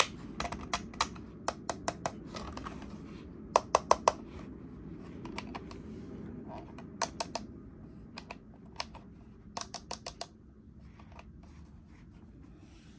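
Hard plastic toys and packaging being handled: quick runs of sharp clicks and taps, three to five at a time, over a low steady hum.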